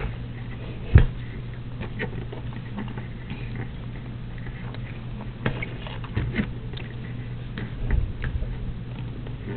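Fingers handling and knotting embroidery floss close to the microphone: soft scattered scratching and clicking, with one louder knock about a second in.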